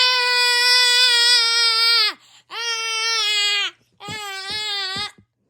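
A person crying in a high, drawn-out wail: a long held cry of about two seconds, a shorter one, then a broken, sobbing one near the end.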